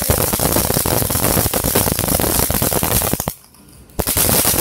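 Ground fountain firework spraying sparks with a dense, rapid crackle of small pops. The crackling breaks off for under a second about three seconds in, then comes back.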